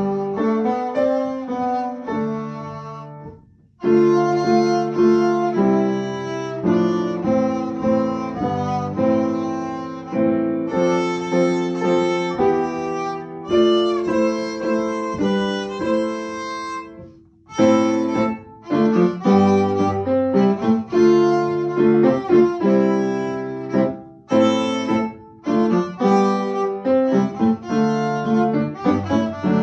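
Violin played by a young student, accompanied by an upright piano: a tune of connected bowed notes in short phrases, with brief breaks about three and a half and seventeen seconds in.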